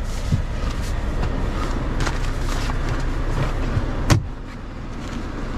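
Truck engine idling steadily with a low hum, with one sharp knock about four seconds in and a few fainter clicks.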